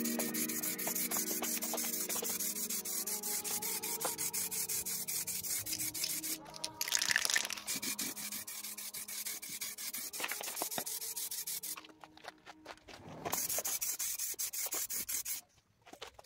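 Steady scratchy rubbing on a car fender, like hand sanding or polishing its paint, breaking off briefly about six and twelve seconds in and stopping shortly before the end. A music outro fades out at the start.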